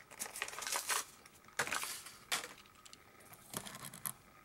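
Plastic blister packaging of a die-cast toy car being handled and opened, crackling and clicking in irregular bursts.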